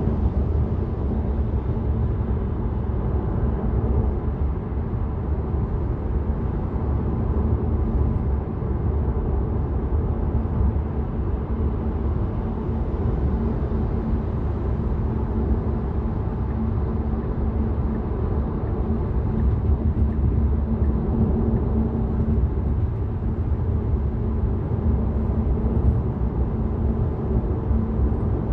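Steady road and tyre noise of a Tesla electric car driving, heard from inside the car: an even low rumble with a faint steady hum and no engine sound.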